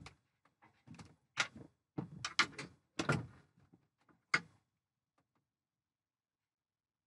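A string of irregular knocks, clunks and clatters as a caught fish and fishing gear are handled on a sailboat deck. The knocks stop about four and a half seconds in.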